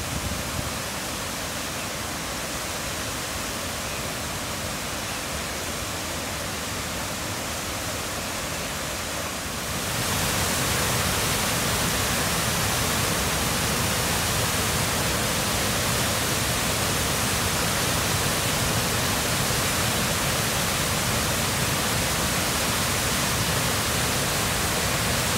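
Haruru Falls, a broad waterfall on the Waitangi River, pouring over a rock ledge into its pool: a steady rush of falling water that grows louder about ten seconds in.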